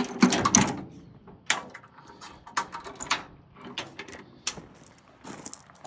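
Scattered metallic clanks and rattles from the dump truck's homemade chain tailgate latch and tailgate being handled, a separate knock every half second or so, after a brief bit of speech at the start.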